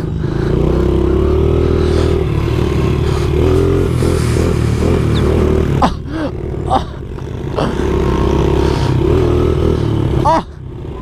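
Small pit bike engine running under throttle as it is ridden, its pitch rising and falling, with wind noise on the camera microphone. The engine drops off briefly about six seconds in and again near the end.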